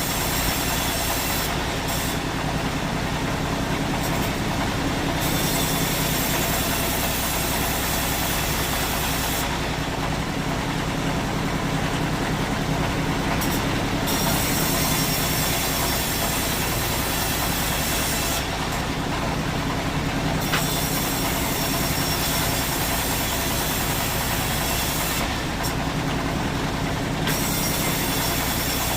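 Sawmill machinery running steadily with a low hum under a high hiss. The hiss drops away for a few seconds four times, then comes back.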